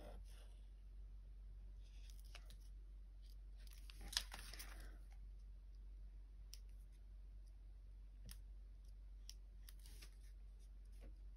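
Very faint scratching and ticking of a white paint marker drawn along paper, with a brief rustle and a sharp click about four seconds in as the paper is turned on the cutting mat. A low steady hum sits underneath.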